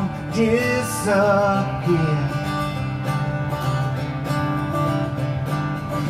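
A man sings the held end of a line over a strummed Taylor acoustic guitar. The voice stops about two seconds in, and the guitar carries on alone with steady strummed chords.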